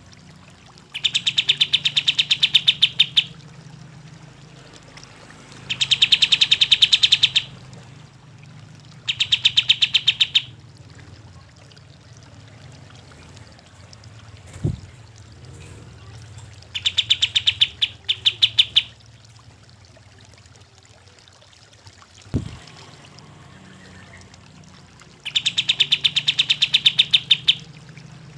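Kapas tembak bulbul singing in five bouts of rapid, evenly repeated notes, each lasting about two seconds, over a low steady hum. Two short thumps fall in the quiet gaps between bouts.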